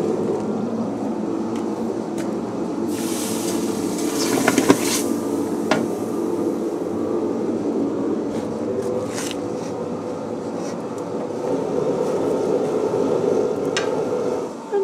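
Blacksmith's coal forge running under its air blast: a steady rushing drone, with a few sharp metal clinks of tongs and iron bars and a brief rattle a few seconds in.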